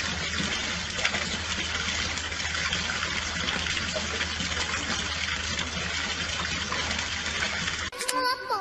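Water running and splashing steadily, a continuous gushing rush that cuts off abruptly near the end, where music takes over.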